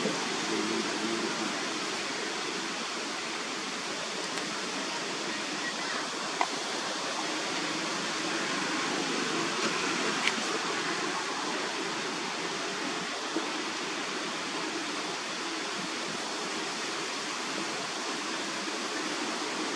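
Steady, even rushing background noise, with a couple of faint clicks about six and ten seconds in.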